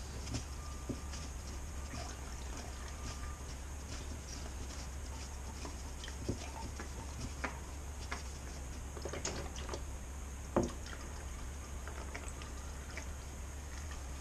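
Scattered small clicks and knocks of an oil filter removal tool and gloved hands working the old oil filter loose on a Honda Varadero 1000, one sharper knock about ten and a half seconds in, over a steady low hum.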